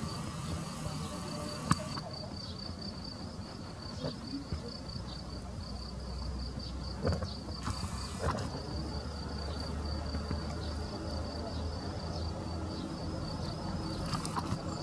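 An insect chirps steadily in a fast, even pulse of about five chirps a second. Under it is a low rumble from the approaching Airbus A350's Rolls-Royce Trent XWB turbofans, growing stronger from about halfway through.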